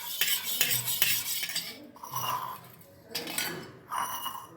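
Teaspoon stirring honey into warm turmeric milk, with repeated light clinks against the vessel at an uneven pace.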